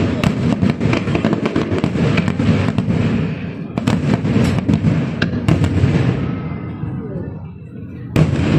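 Fireworks display: a dense barrage of rapid bangs and crackles over a low rumble. It thins out about seven seconds in, then a loud burst comes near the end.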